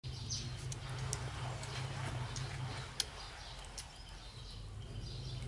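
A baby monkey sucking at a plastic milk bottle, with a few sharp irregular clicks and smacks, the loudest about three seconds in, over a steady low hum.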